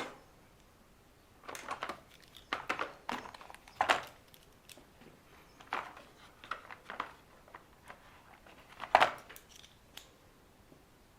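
Small bolts and tools being handled and fitted on an RC car's plastic and metal parts: scattered clicks, rattles and light knocks in short bursts, with one louder knock about nine seconds in.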